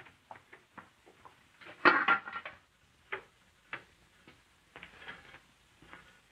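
Scattered knocks and clinks of metal cooking pots and lids on a kitchen stove, the loudest clatter about two seconds in, with a softer rattle near the end.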